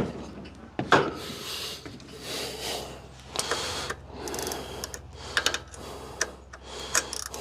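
Hand tools clicking and clinking against metal in short irregular bursts, working on the riding mower's engine cover bolts, over a faint steady low hum.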